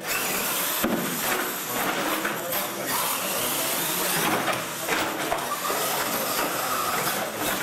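Radio-controlled monster trucks racing on a concrete floor: a steady hissing rush of motors and tyres that starts suddenly at the launch, with crowd chatter under it.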